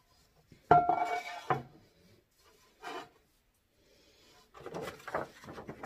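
Giffin Grip parts being handled on a pottery wheel head as the tool is assembled. There is a loud knock with a short ring about a second in, another knock just after, and then a run of small clicks and rattles as a bracket is fitted near the end.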